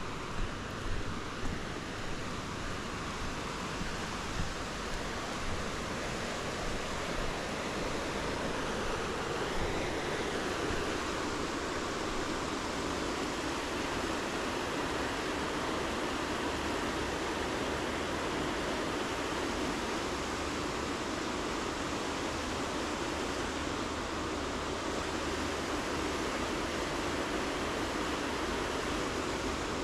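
River rapids rushing, a steady even wash of water that grows a little louder over the first several seconds and then holds. Footsteps on a dry dirt path come at a walking pace through the first six or seven seconds.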